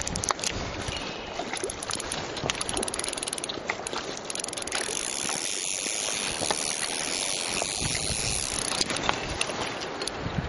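Steady rush of river current, with scattered small clicks and handling noise close to the microphone.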